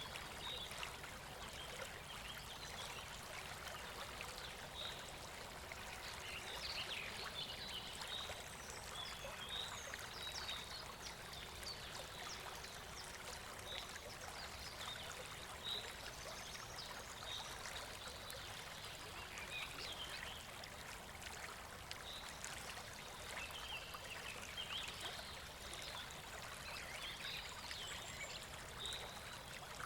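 Flowing river water, a steady faint rush, with short high chirps scattered over it.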